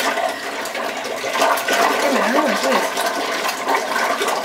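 Several people blowing through drinking straws into a large fishbowl cocktail, the liquid bubbling and gurgling steadily like hot-tub jets. A brief wavering hum from one of them about two seconds in.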